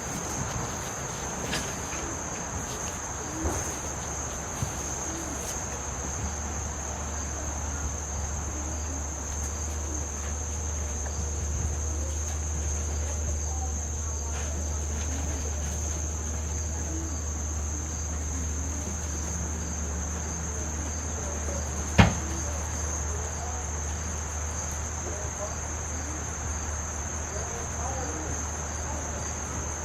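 Insects trilling steadily in a high-pitched tone, over a low steady hum. A single sharp click stands out about twenty seconds in.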